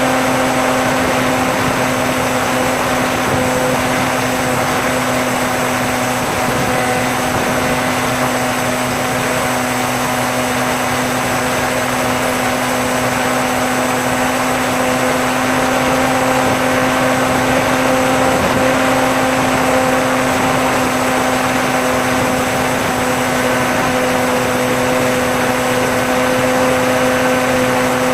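Bixler RC plane's electric motor and pusher propeller running at a steady throttle in flight: an even hum with a few higher steady tones over a rushing hiss.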